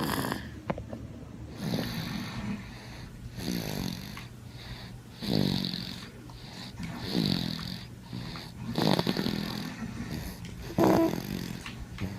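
Snoring in a steady rhythm, about one snore every two seconds, each one dropping in pitch.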